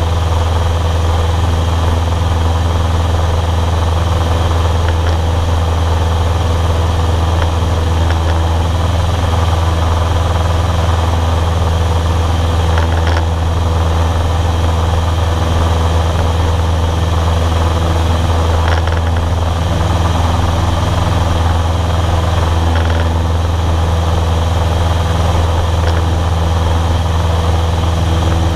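Cessna 152's four-cylinder Lycoming engine and propeller droning steadily in cruise flight, heard from inside the cockpit.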